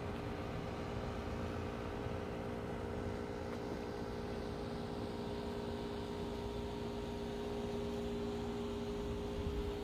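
Street ambience: a steady mechanical hum over a low rumble, unchanging throughout.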